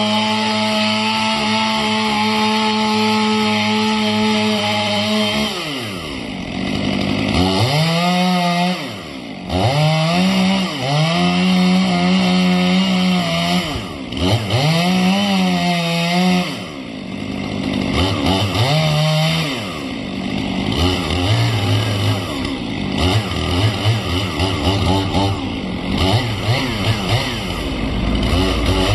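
A two-stroke chainsaw running at high revs, then dropping and revved up and down in repeated bursts while cutting into the branches of a felled pine. In the last third it runs at lower, uneven revs.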